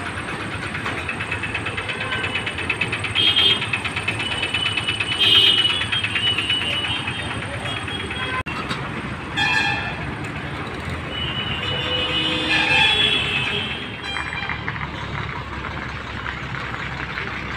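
Busy city traffic around a bus stand: the engines of buses and other vehicles run steadily, and horn toots come through several times.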